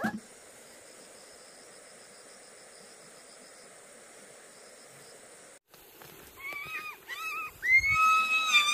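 Faint steady insect chirring with an even high whine, cut off suddenly; then a run of short high-pitched animal calls, each bending up and down, the last one held longer.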